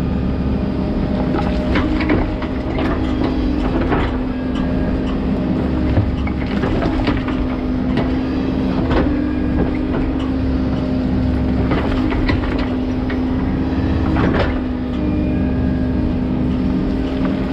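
13-tonne tracked excavator's diesel engine and hydraulics running steadily with a constant hum. The bucket scrapes and knocks through soil and broken brick every second or two.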